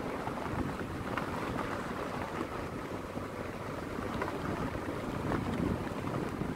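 Vehicle rolling along a wet dirt road: a steady rumble of tyre and road noise with wind on the microphone and a few light ticks.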